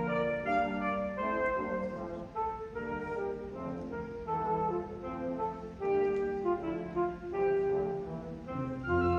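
A school wind band of brass and woodwinds, with string bass, playing held chords that change about once a second.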